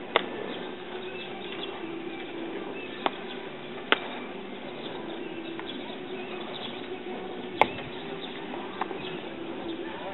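Baseballs popping into leather gloves during warm-up throws: five sharp cracks over ten seconds, the loudest right at the start and about seven and a half seconds in. A steady hum of an open-air ballpark lies under them.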